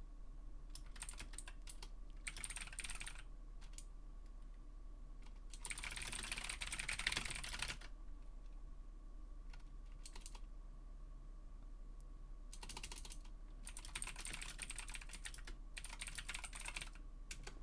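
Typing on a computer keyboard in several short runs of quick key clicks, the longest and loudest run about six to eight seconds in, over a faint steady electrical hum.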